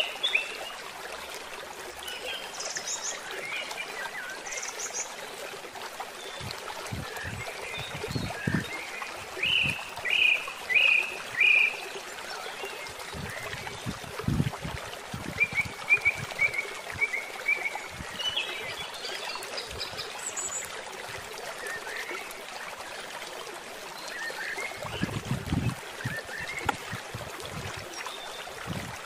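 Outdoor ambience: birds calling in short runs of repeated chirps over a steady background hiss, with a few dull thuds as bamboo poles are handled.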